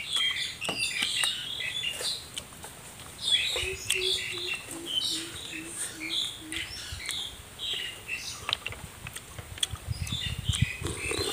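Small birds chirping and twittering steadily. A run of about eight short low hoots, falling slightly in pitch, comes near the middle. Scattered sharp clicks run through it, from snail shells being handled while eating.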